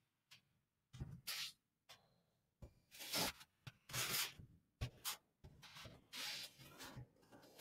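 Rubbing and scraping handling noise: several short scratchy bursts, about a second apart.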